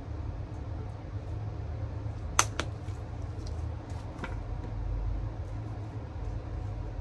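Steady low hum of a fan, with two sharp clicks about two and a half seconds in and a fainter one a little after four seconds, as a squeeze bottle of sauce is drizzled over sushi fillings.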